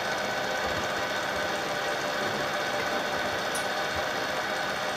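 Bridgeport vertical milling machine running steadily, its bull-nose end mill taking a light squaring cut along the edge of a steel plate.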